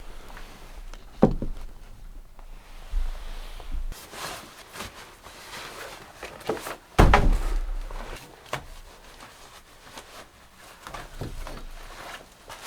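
Two heavy thumps, one about a second in and the loudest about seven seconds in, with lighter knocks and rustling between them.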